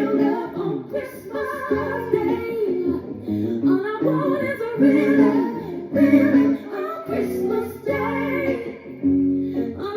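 Live band playing a slow soul ballad while a vocalist sings long, wavering notes with vibrato.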